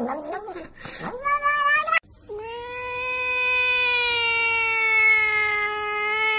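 A cat meows with a wavering pitch. After a brief break about two seconds in, a second cat gives one long, steady yowl.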